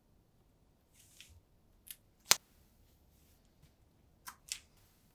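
Thin plastic sheet and double-sided tape being handled and pressed down on a tabletop: a few short crackles and clicks, the sharpest about two seconds in and a quick pair near the end.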